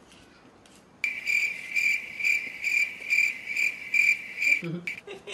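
Cricket chirping: a high pulsing chirp about twice a second that starts abruptly about a second in and cuts off near the end.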